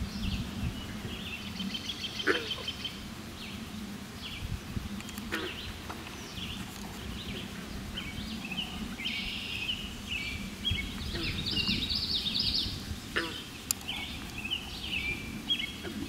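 Several songbirds singing, many short overlapping chirps and phrases, over a low steady hum, with a few sharp clicks about two, five and thirteen seconds in.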